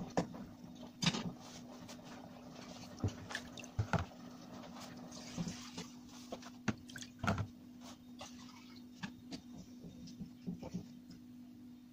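Kitchen clatter: a metal spoon knocking and clinking against a cooking pot on the stove as the pot is stirred, scattered irregular knocks over a steady low hum.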